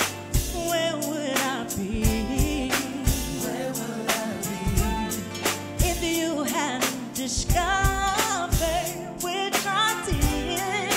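Live R&B singing: a female lead vocalist holds wavering notes and vocal runs over a band with drums, bass and keys.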